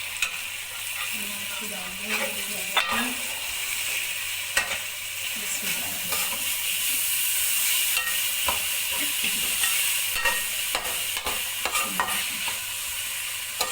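Soaked urad dal frying in hot oil and tomato masala in a karahi: a steady sizzle, broken every second or so by sharp knocks and scrapes as it is stirred.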